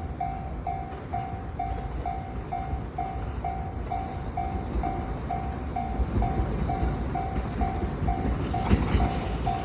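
Japanese level-crossing warning bell ringing, an electronic tone repeating about twice a second, over the low rumble of a train. The rail noise grows louder near the end as the train draws near.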